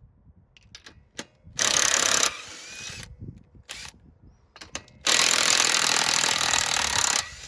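Cordless impact driver run in two bursts, a short one and then one of about two seconds, spinning the loosened wheel nuts off a raised wheel, with small clicks between.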